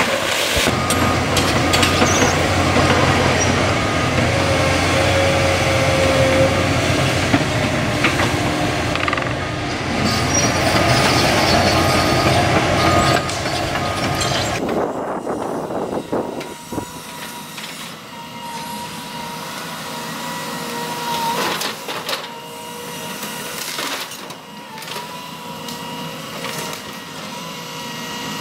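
Caterpillar 329E excavator's diesel engine running hard with hydraulic whine while it works a tree shear on a felled tree, with some sharp knocks and cracks. About halfway through the sound drops abruptly to a quieter, thinner engine hum with a steady high whine.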